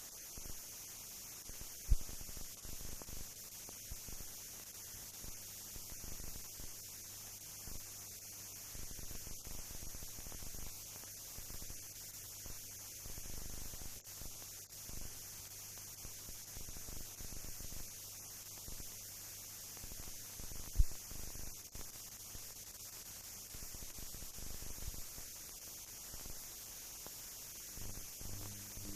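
Hiss and a faint low hum of a silent film's blank soundtrack, with two sharp clicks, one about two seconds in and one about twenty-one seconds in.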